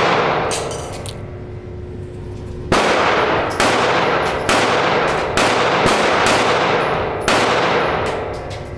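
Gunshots in an echoing indoor shooting range: the ring of one shot fades out at first, then six sharp shots follow about a second apart, each trailing a long reverberant tail.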